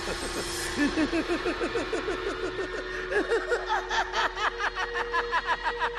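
The Joker's cackling laugh: a rapid string of 'ha' pulses, about five a second, climbing higher in pitch as it goes on.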